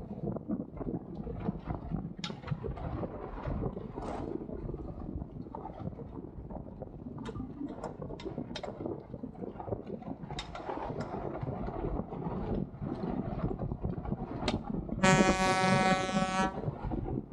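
Wind on the microphone and water noise aboard a Dart 18 catamaran under sail, with scattered sharp knocks and clicks. About fifteen seconds in, a loud held pitched tone sounds for about a second and a half.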